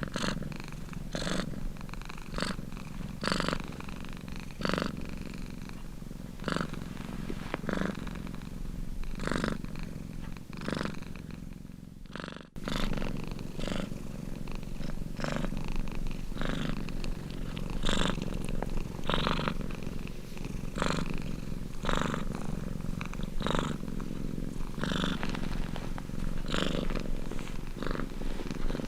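Domestic cat purring steadily, the purr swelling louder with each breath about every second and a half. It drops out briefly about twelve seconds in, then resumes.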